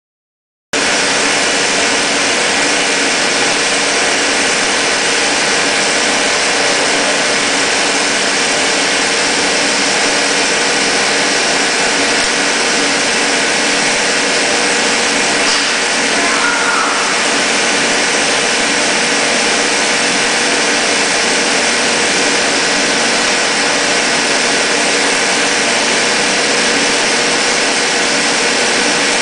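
Kearney & Trecker No. 3CH vertical milling machine running under power, its 7-1/2 HP three-phase motor and gear-driven spindle giving a steady mechanical hum with a constant whine.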